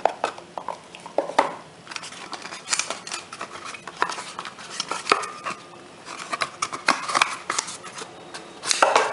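A car charger and its small cardboard box being handled: a string of light, irregular clicks, taps and scrapes as the box is opened and the metal-bodied charger is lifted out and turned over in the hands.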